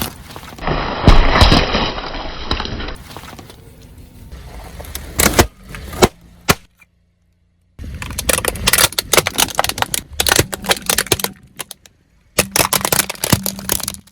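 A car's tyres crushing brittle objects, with dense crunching and cracking in several separate takes. There are a few sharp snaps in between and a second of silence about halfway.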